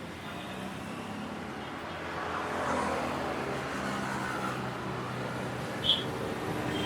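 Road traffic: vehicle engines running and passing, swelling louder about two seconds in. A short, high-pitched beep comes near the end.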